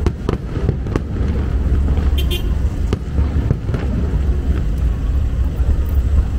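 Aerial fireworks bursting: a string of sharp bangs in the first second, a short crackle a little after two seconds, and more bangs around three to four seconds in, over a steady low rumble.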